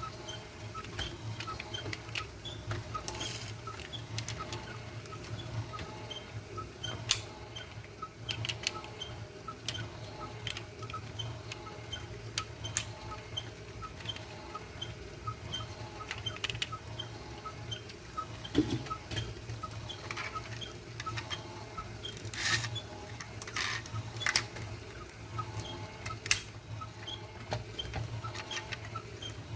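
Small die-cast and plastic toy cars being handled close to the microphone: irregular light clicks, taps and scrapes, a few sharper ones past the middle, over a steady low hum.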